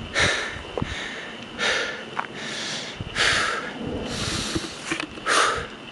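A man breathing hard from the exertion of a steep uphill climb, with about five heavy, rushing breaths roughly a second or so apart.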